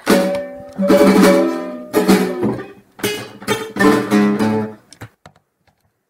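Acoustic guitar strumming a short run of loud chords, the last ringing out and dying away about five seconds in: the closing chords of the piece.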